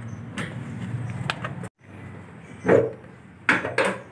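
A Perodua Myvi's bonnet being opened: light clicks as the release lever under the dashboard is pulled over a low steady hum. After a cut, three loud sharp clunks come from the bonnet latch as the bonnet is freed and lifted.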